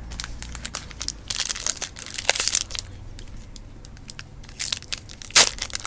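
Plastic trading-card pack wrapper crinkling and tearing as it is handled and opened, a quick run of crackles, then a sharper crinkle near the end.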